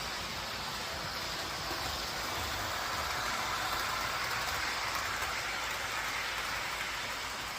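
Train rolling past with a steady rushing noise that swells gently in the middle and eases toward the end.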